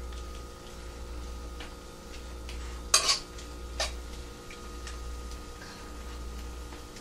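Utensil scraping and knocking against a wok while stir-frying beef, peppers and mushrooms, with light scattered ticks. There is a loud clank about three seconds in and a smaller one just after.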